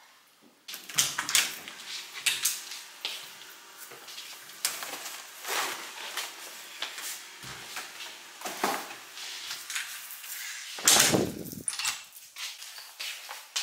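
Irregular knocks, clicks and rustling, the sound of things being handled in a small room. It starts under a second in, and a louder, longer rustle or thud comes about eleven seconds in.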